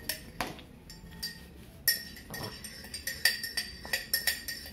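Metal spoon clinking and scraping against a glass measuring cup, a few single clinks and then a quick run of them from about halfway, as xylitol sweetener is scraped out of the cup into the jug.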